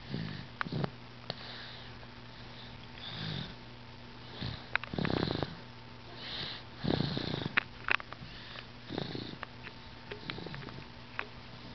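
Young child asleep in a car seat, snoring softly in a purring, cat-like way, one rasping snore with each breath about every one and a half to two seconds. A few sharp little clicks fall between the snores.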